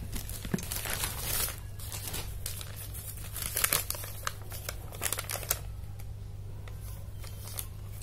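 Plastic courier packaging crinkling and tearing as a parcel is opened by hand, with paper rustling as the contents are pulled out. The handling is busiest for the first five or six seconds, then dies down over a low steady hum.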